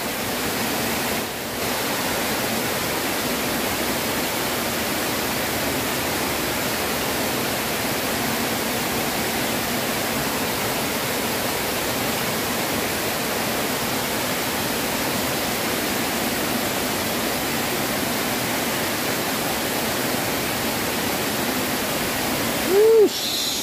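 A small waterfall pouring over a stone weir into a pool: a steady, even rushing of water. Near the end a short, louder sound breaks in.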